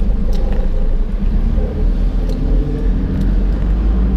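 Toyota Hiace van on the move, heard from inside the cab: a steady low engine and road rumble with a few faint clicks.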